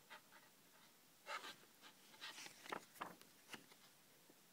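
Paper pages of a CD booklet being turned by hand: a cluster of short rustles and crisp clicks for about two and a half seconds, starting about a second in.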